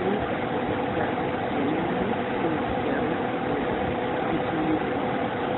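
Steady droning machine hum with a constant tone, unchanging throughout.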